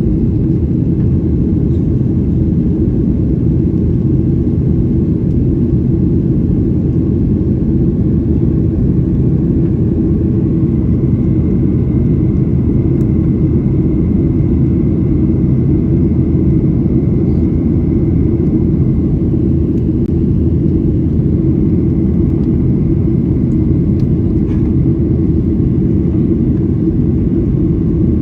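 Jet airliner cabin noise heard from inside the cabin: the steady low rumble of the engines and airflow, with a faint thin whine coming in about a third of the way through.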